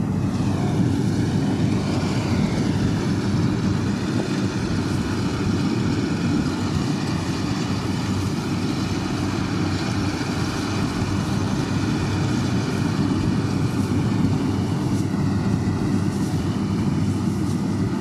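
Compact rice combine harvester running steadily while it harvests, a continuous engine and machinery drone.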